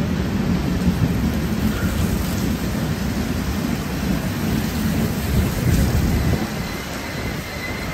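LHB passenger coaches rolling past at speed: a steady low rumble of wheels on rail.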